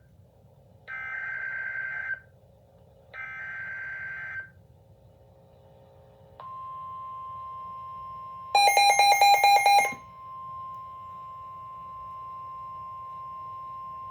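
Emergency Alert System weather alert opening: two short bursts of warbling digital header data, the machine-readable code that identifies the alert. A few seconds later comes a steady single-pitch warning tone, with a loud, rapid beeping burst over it for about a second and a half near the middle.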